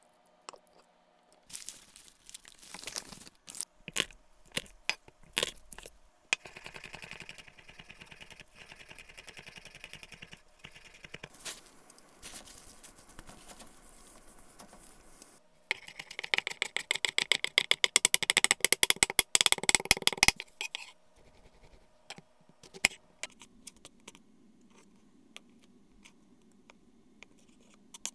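Kitchen prep sounds: scattered knife strikes on a cutting board, then a steady hiss of broccoli rabe blanching in a pot of boiling water. After that comes a fast run of knife chops on a cutting board, the loudest part.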